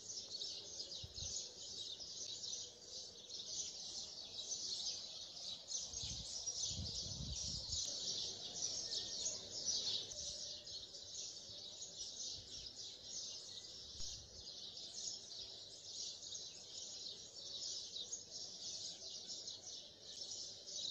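A dense, steady chorus of birds chirping, the calls running together in a continuous high twitter.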